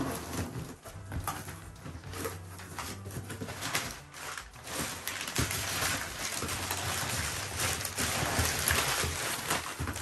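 Brown kraft packing paper rustling and crinkling as it is pulled out of a cardboard box, with cardboard flaps being handled; the crackling grows louder in the second half.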